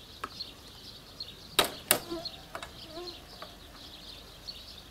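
Two sharp hammer blows, about a third of a second apart, on a nail in a wooden swing crossbeam, with a few lighter taps around them. High chirping goes on in the background.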